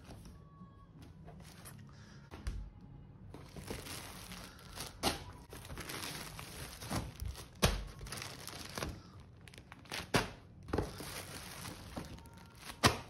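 Plastic bags around packaged clothing crinkling and rustling as they are handled and lifted out of a paper shopping bag. The sound starts about three seconds in and carries on as dense crackling, with several sharp, loud crackles.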